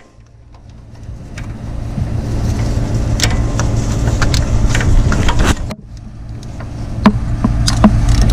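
A few sharp metallic clicks of a socket wrench working a thermostat housing's E10 Torx bolts loose, over a steady low hum.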